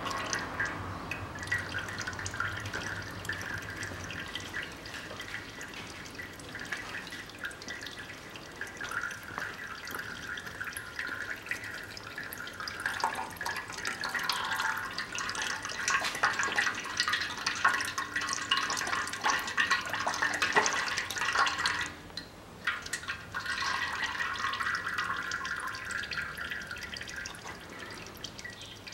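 Used engine oil pouring and dripping from the oil filter mount of a Toyota Yaris 1.3 engine into a basin as the filter is unscrewed by hand. It breaks off briefly about two-thirds of the way through.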